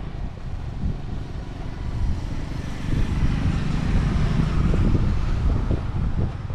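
Wind buffeting the microphone with a constant fluttering rumble, and a broad rush of noise that swells in the middle and eases near the end.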